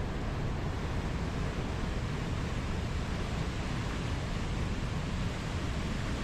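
Steady, unbroken rush of falling and flowing water.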